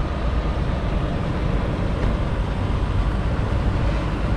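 Semi-truck diesel engine running steadily as the truck rolls slowly across a parking lot, a constant low, even noise.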